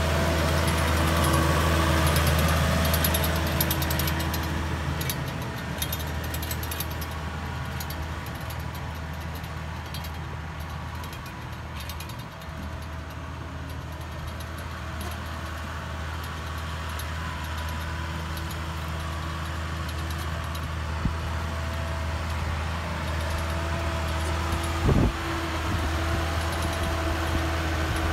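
Massey Ferguson 6480 tractor's six-cylinder diesel engine running steadily under load while pulling a laser land leveller, loudest at first, fading as the tractor moves off and growing louder again near the end as it comes back. A short thump a few seconds before the end.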